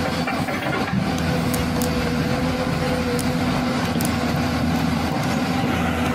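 A truck engine sound running steadily at an even pitch, with a few faint clicks.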